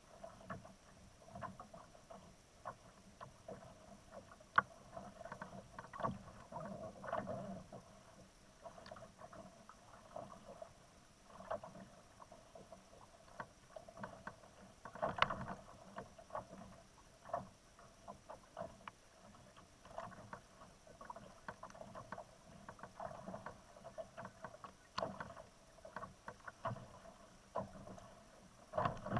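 Sea water slapping and knocking irregularly against the plastic hull of a fishing kayak, with a louder cluster of knocks about halfway through.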